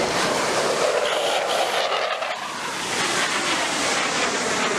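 Military jet making a fast low pass, a loud steady roar whose pitch sweeps down about two seconds in as it goes by.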